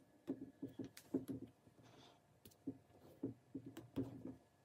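Faint, irregular soft taps and rubs of fingers handling close to the microphone, pressing gaffer tape around a rifle scope's elevation turret and brushing against the camera.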